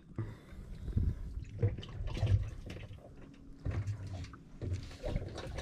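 Water splashing and dripping, with scattered knocks and bumps from handling gear on a boat deck.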